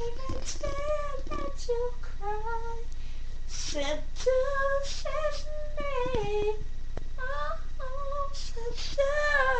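A high-pitched female voice singing or wailing wordlessly in a string of short held notes, some sliding down in pitch, in a cat-like way.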